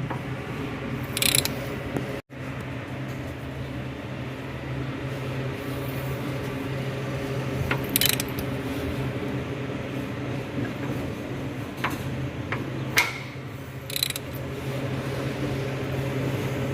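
Hand ratchet wrench turning the crankshaft of a Mitsubishi L200 Triton 3.2 diesel engine clockwise, with a few sharp metallic clicks over a steady low hum.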